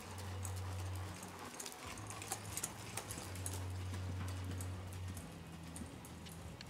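Paint horse's hoofbeats on the soft sand-and-dirt footing of an indoor arena as it moves at a slow walk under saddle, scattered light thuds and clicks. A low hum comes and goes underneath.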